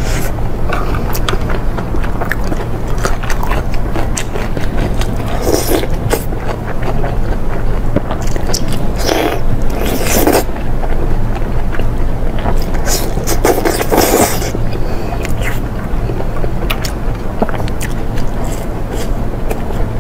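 Close-miked eating: a person biting and chewing grilled meat off skewers, with irregular wet smacks and clicks and several louder chewing bursts, over a steady low hum.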